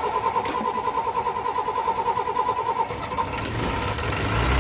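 Small single-cylinder engine of a student-built off-road buggy (Briggs & Stratton 300cc) running at a steady, fast, even pulse for about three seconds. After that a broader rush of engine noise builds, with a low tone rising in pitch near the end.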